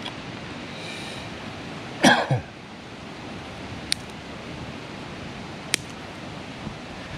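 A man coughs once, a short double burst about two seconds in, over a steady outdoor hiss. Two sharp snaps follow later as small dry twigs are broken for a fire lay.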